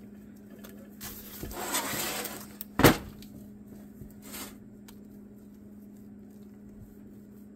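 A spatula spreading frosting over bars in a foil pan: a scraping rustle, then one sharp clink just before three seconds in and a lighter one a second and a half later, over a steady low hum.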